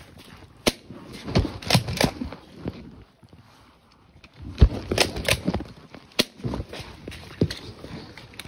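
Footsteps and the rustle and knock of kit against a phone carried in a mesh MOLLE pouch, as the wearer moves. The noise comes in two spells of irregular bumps and rubbing, with a short lull between them.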